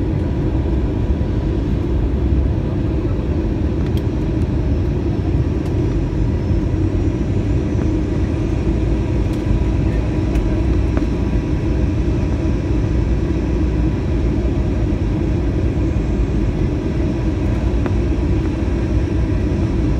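Airliner cabin noise on the approach to landing: a steady, loud rumble of engines and airflow, with faint even tones running over it.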